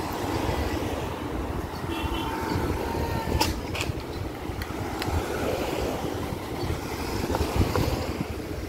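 Road traffic: several cars driving slowly past close by, a steady rumble of engines and tyres, with a few short clicks about three and a half seconds in.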